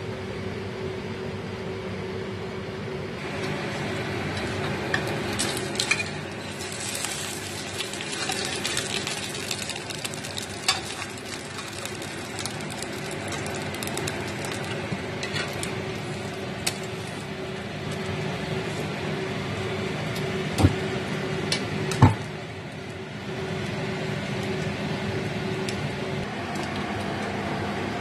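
Cooking sizzling in a stainless steel wok on a gas stove, over a steady low hum, with scattered light clinks of a utensil. Two sharp metallic knocks come close together about three quarters of the way through.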